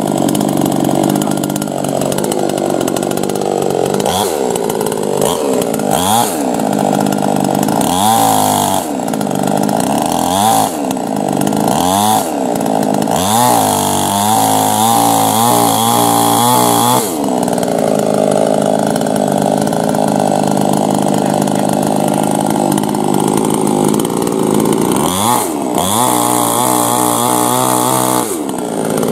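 Star Kut SKE-CS 22 petrol chainsaw running and being revved again and again, with short throttle blips about every two seconds. It is then held at high revs for a few seconds about halfway through and again near the end, with the chain cutting into a dry log.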